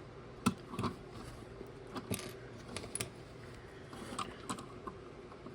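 Small plastic building-brick pieces clicking and rattling as they are handled and pressed onto a model: a scatter of light, irregular clicks.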